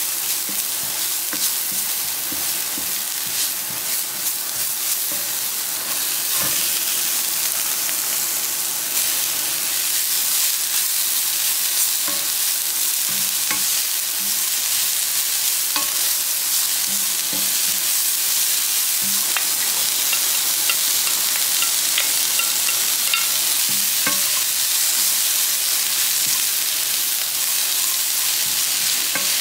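Chopped green onion, then shredded cabbage and sliced onion, sizzling in oil in a hot nonstick frying pan while being stirred and tossed with a silicone spatula, with light scrapes and taps of the spatula against the pan. The sizzle gets louder between about six and nine seconds in.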